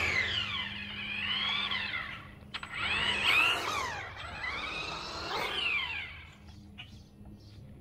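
Traxxas Slash RC truck's Velineon 3500 brushless motor whining as it is driven past, in three surges that rise and drop sharply in pitch as the throttle is applied and released, then fading away. The motor's rotor was rubbing inside the can after a bearing failure, which made the truck drag as if braking whenever the throttle was let off.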